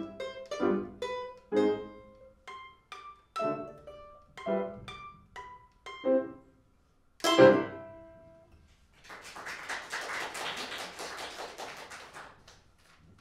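Domra and piano playing plucked notes and chords, ending on a loud final chord about seven seconds in. The audience then applauds for about three seconds.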